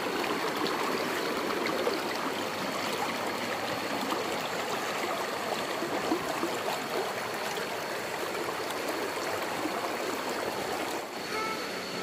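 Shallow rocky river rushing over stones, a steady dense rush of water that drops away about a second before the end.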